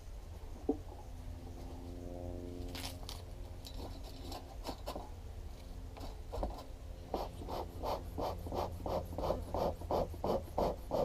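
Bee smoker's bellows being pumped. From about seven seconds in it gives a steady run of puffs, about three a second, like a choo-choo train.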